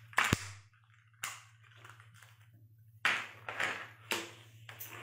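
Shell of a cooked brown crab cracking and snapping as it is pulled apart by hand: a sharp crack just after the start, another about a second in, then a run of crackling and crunching from about three seconds in as the pieces are bitten into.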